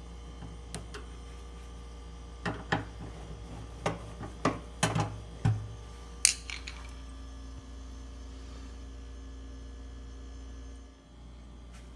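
Old refrigerator running with a steady low hum, with a run of about eight light knocks and clicks in the first half. The hum briefly dips shortly before the end.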